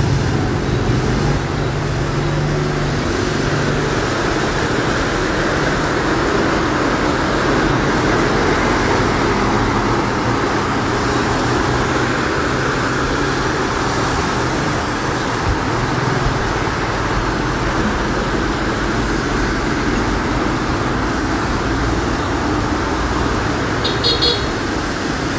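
Road traffic driving through a flooded street: motor vehicle engines running and tyres swishing and splashing through the floodwater in a steady rush of noise. A short high beeping sounds near the end.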